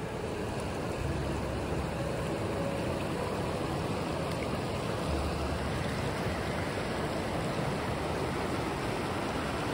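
Fast-flowing river rushing over rocks and shallow rapids: a steady, even noise of running water.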